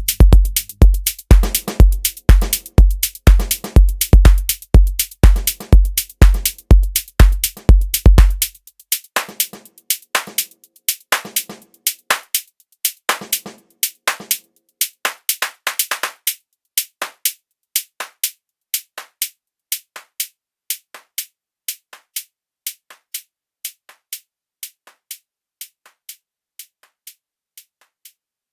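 Electronic drum-machine beat: a deep kick drum about twice a second drops out about 8 seconds in, leaving sharper mid and high percussion hits that thin out and fade gradually toward the end.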